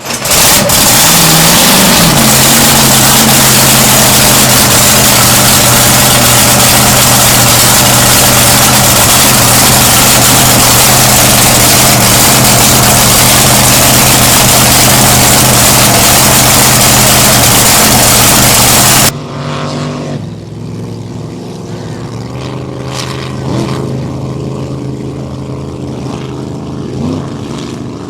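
A race boat's engine running loud and close at a steady pitch, so loud it swamps the recording. About two-thirds of the way through it cuts off abruptly to a quieter engine sound with small rises and falls in pitch.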